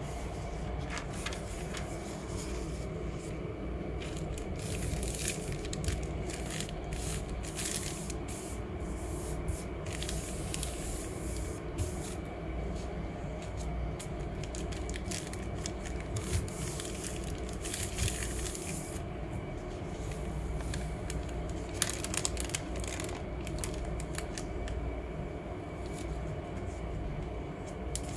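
Paper being rubbed and smoothed by hand over an inked gel printing plate, with repeated rustling and scraping strokes, over a steady low hum.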